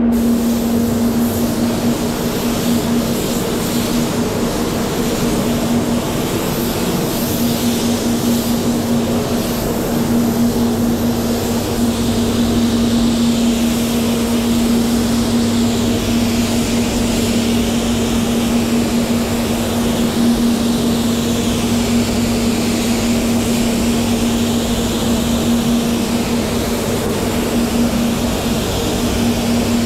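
SATAjet X5500 spray gun hissing as compressed air atomises 2K clear coat, the hiss swelling and easing with each pass. Under it the spray booth's extraction fans run with a steady hum.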